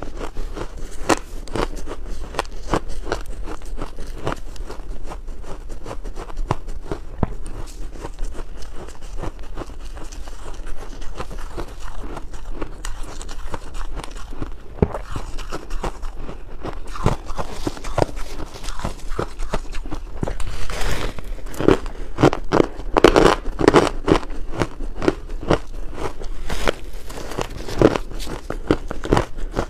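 Close-up crunching and chewing of mouthfuls of pink-red crushed ice, a dense run of crackling crunches that gets louder about two-thirds of the way through.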